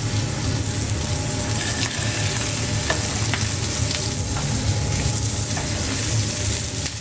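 Grouper fillets searing in oil in a frying pan over a gas burner: a steady sizzle with a few small pops, and a low steady hum underneath.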